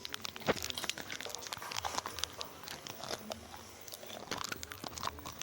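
Irregular crunching and crinkling clicks, like a dog chewing and biting on something hard, with one sharper crack about half a second in.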